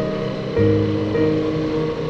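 Background music of sustained, held notes, with the chord changing about every half second.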